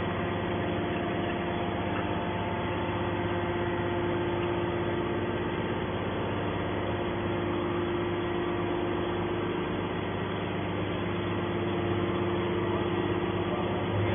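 A machine's motor running with a steady hum, holding one pitch and level throughout.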